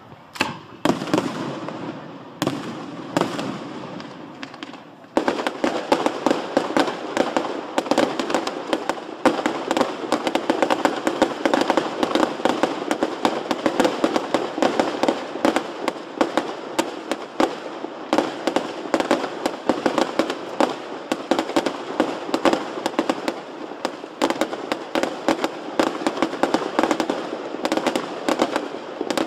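Aerial fireworks display: a few separate bangs and crackles, then about five seconds in a dense, continuous barrage of rapid crackling reports that keeps going.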